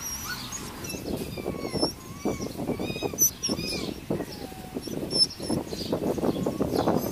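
Small birds chirping and twittering over close rustling and crackling of leaves and branches being brushed and handled.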